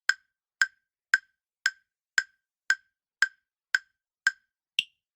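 Countdown timer tick sound effect: short, sharp clock-like ticks about twice a second, the last one near the end higher-pitched.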